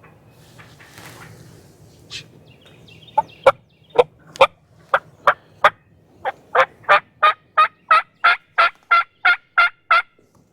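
A long series of wild turkey yelps: about twenty short, sharp notes, starting unevenly and then settling into about three a second.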